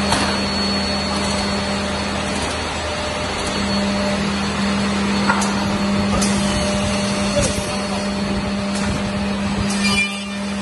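Winmax DET2200-6 six-spindle double end tenoner running, with a steady whirring hum and hiss and a few light clicks in the middle.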